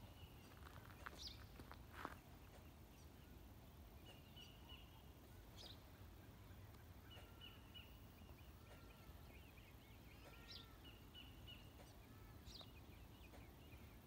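Faint dawn birdsong from several birds: short repeated high notes, a few quick rising whistles and soft arched notes in the middle. Two sharp knocks come about one and two seconds in, over a steady low rumble.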